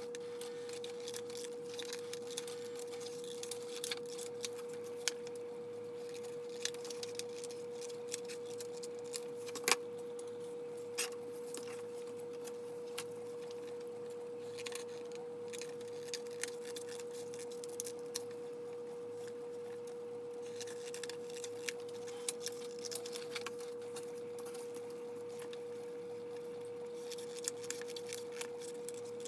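A steady single hum-like tone throughout, with scattered faint clicks and snips of scissors cutting printed paper chip bags.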